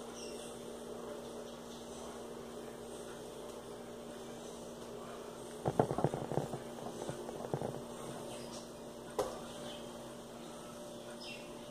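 Steady low electrical hum with a short flurry of clicks and rustles about halfway through and a single click a few seconds later: handling noise from hand-sewing a felt plush heart closed with needle and thread.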